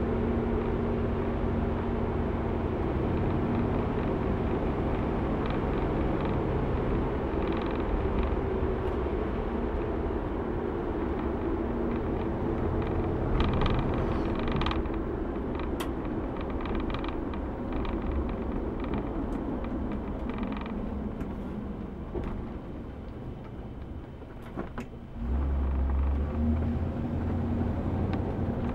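Cabin noise of a 1964 Chevrolet Impala under way: its 327 V8 and the tyres running steadily, with creaks and clicks from the interior. A short low thump comes near the end.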